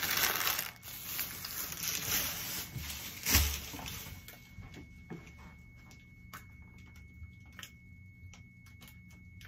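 Plastic candy bags crinkling and rustling as candy is handled into an Easter basket, with a thump a little over three seconds in. After that, only soft scattered clicks and taps.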